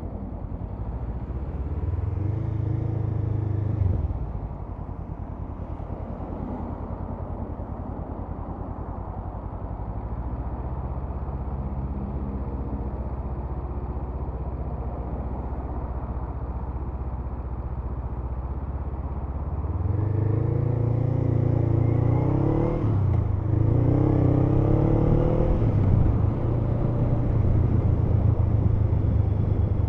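Honda CMX500 Rebel's parallel-twin engine running under way. It picks up briefly a couple of seconds in, runs steady, then accelerates in two rising pulls with a gear change between them in the last third.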